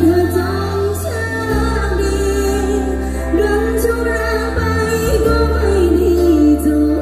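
A woman singing a song live into a microphone, backed by a band with long held bass notes and drums.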